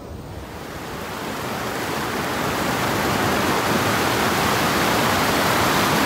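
River rapids below a waterfall: white water rushing over rocks in a steady, even noise that swells over the first two or three seconds and then holds.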